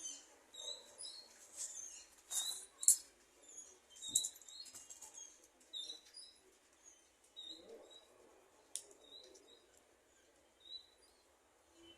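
Small birds chirping in short, repeated high notes, with scattered sharp clicks and rustles; the loudest click comes about three seconds in.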